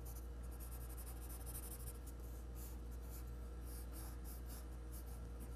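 Graphite pencil scratching on paper in quick, short shading strokes, laying in fur texture, over a low steady hum.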